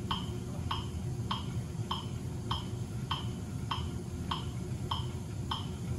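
Metronome set at 100 beats per minute, giving a short, even click-beep about every 0.6 s. It paces the pedal downstrokes for a 50 rpm cadence on a cycle ergometer.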